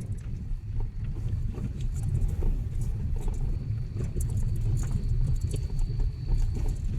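Vehicle driving over a rough off-road track: a steady low rumble with scattered knocks and rattles.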